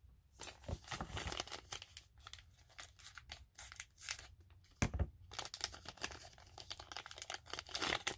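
Packaging crinkling and rustling as craft supplies are handled, with a soft knock about five seconds in.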